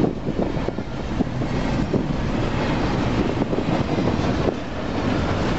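Double-stack container train's well cars rolling past close by: a steady rumble of steel wheels on rail with scattered knocks, and wind buffeting the microphone.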